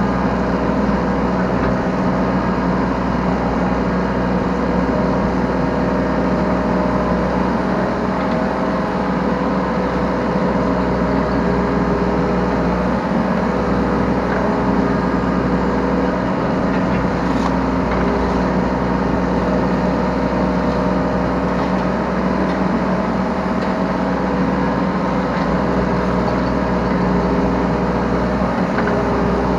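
Yanmar B3 Sigma 3-ton mini excavator's diesel engine running steadily at working speed, heard from the operator's seat.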